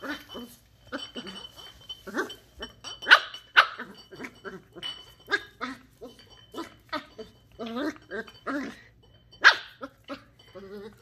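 Shetland Sheepdog puppy barking at a bottle in repeated short barks, with the loudest a few seconds in and near the end.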